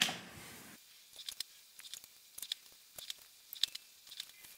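A sharp knock at the very start, then faint light taps and clicks, a few each second, as a small metal stamping die and leather pieces are handled and set down on the press bed.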